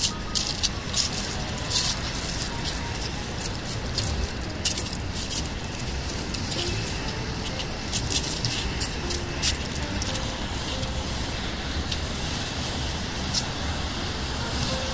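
Steady low hum of distant road traffic, with scattered light, crisp clicks and crunches coming at irregular intervals.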